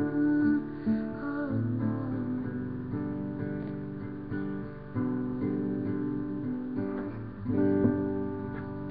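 Guitar played unaccompanied: chords and picked notes ringing, with a new chord struck every second or two. A last chord near the end is left to ring and fade.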